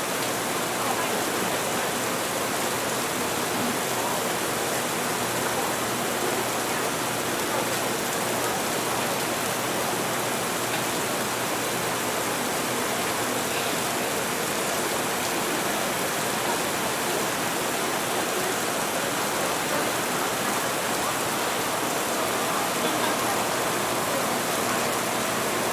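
Steady rain noise, even and unbroken, with a faint murmur of café chatter blended underneath.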